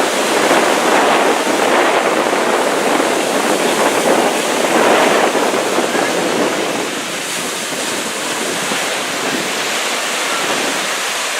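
Ocean surf breaking and washing up a sandy beach, a steady rushing hiss that eases off a little after about six seconds.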